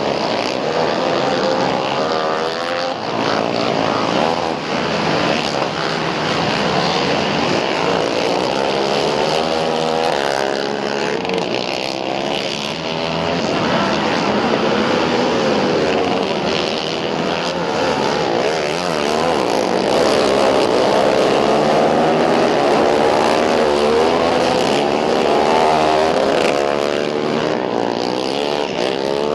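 Several racing ATV engines running hard at once, their pitches rising and falling as the quads accelerate and back off through the turns. The engine noise is continuous and overlapping, with no break.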